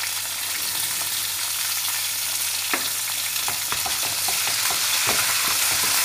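Onions, green chillies and ginger-garlic paste sizzling in hot oil in a large metal wok. From about three seconds in, a metal ladle stirring clicks and scrapes against the pan.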